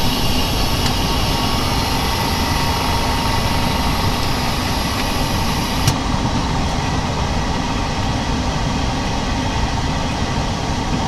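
Vacuum OCA laminating machine running steadily while it presses and laminates a smartphone screen, with one short click about six seconds in.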